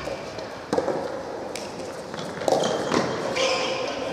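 Three sharp knocks of a rubber soft tennis ball, spread about a second apart, in a large indoor hall, with voices calling in between.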